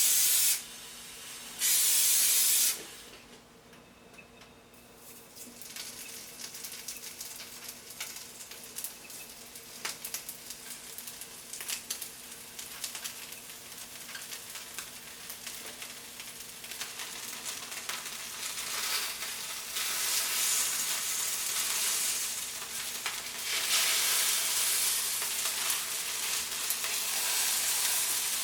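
Two short, loud hisses in the first three seconds. Then slices of starch-dusted pork tenderloin frying in olive oil in a frying pan, a crackling sizzle of many small pops that builds and gets louder in the second half.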